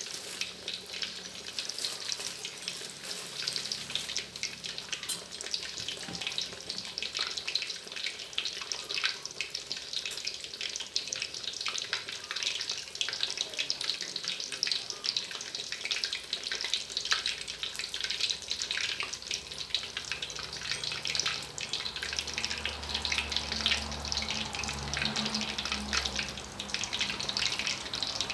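Squares of bread topped with minced pork deep-frying in a wok of hot oil: a steady, dense sizzle full of fine crackles and pops.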